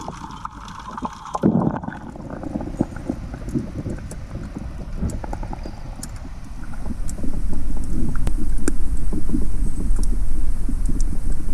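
Muffled water noise picked up by a camera underwater. There is a low thump about a second and a half in, scattered small clicks, and a low rumble that grows louder about seven seconds in.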